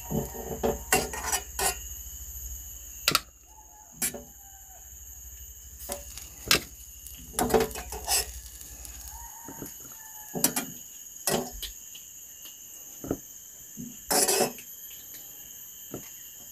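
A metal spoon clinks and knocks against a steel cooking pot in scattered, irregular strikes while lifting boiled bitter gourds out. A steady high insect chirring runs behind.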